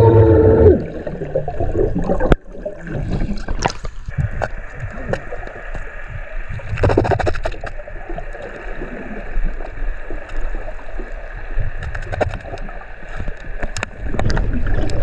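Underwater sound picked up by a diver's camera. In the first second a diver gives a muffled, wavering yell underwater through a stream of exhaled bubbles. After a sharp click a couple of seconds in, the rest is gurgling water movement with scattered small clicks and pops.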